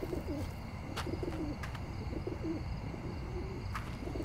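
Soft, repeated cooing of doves, wavering low calls that keep going, with a few faint ticks about a second, a second and a half, and near four seconds in.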